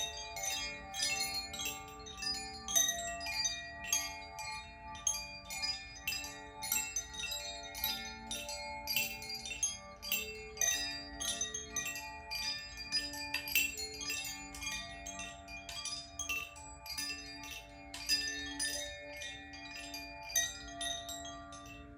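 Wind chimes ringing in a continuous, irregular shimmer of many quick metallic strikes, with lower ringing tones held steadily underneath, as in a sound bath.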